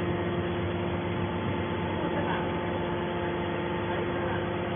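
Hydraulic metal wire baler's power unit running, a steady machine hum with a constant tone.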